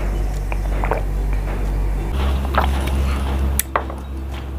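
A person drinking milk from a glass, with a few small swallowing and mouth clicks, then a sharp clink near the end as the glass is set down on a wooden table. A steady low hum runs underneath.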